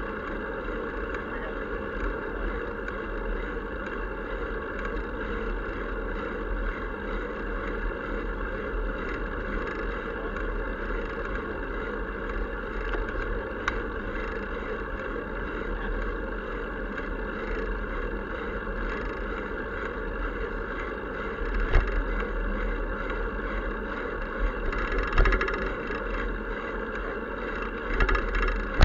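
Steady road and wind noise picked up by a camera on a moving bicycle: tyres rolling on asphalt with a low rumble, and a few louder thumps over bumps in the last several seconds.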